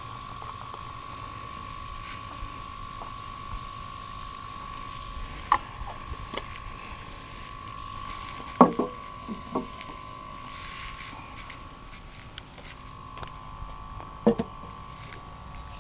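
A few sharp knocks of a stainless kettle and mugs being set down and handled on a wooden picnic table, the loudest about halfway through, over a steady thin high-pitched tone that weakens near the end.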